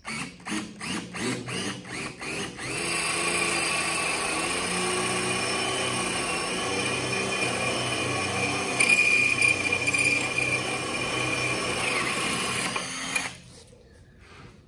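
Cordless drill boring a 1-inch hole through 3/4-inch MDF with a spade bit. It starts with a quick string of short stuttering bursts, then runs steadily for about ten seconds and stops suddenly near the end.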